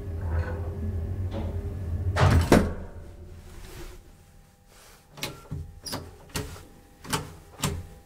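1942 Siemens elevator car running with a low hum that cuts off with a loud clunk about two seconds in, as the car comes to a halt and gets stuck. Then come about six sharp clicks over three seconds as the car's buttons are pressed again and again, with the car not moving.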